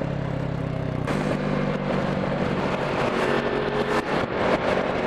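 Motorcycle engine running under way, with wind rushing over the microphone. About a second in, the engine note steps up and the wind gets louder as the bike picks up speed.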